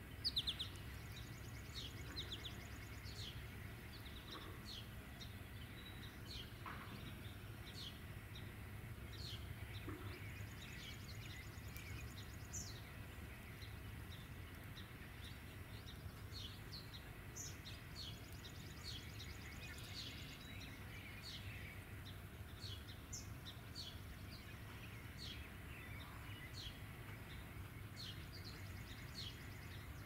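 Small songbirds around a backyard seed feeder calling: short, high calls about once or twice a second, over a steady low hum.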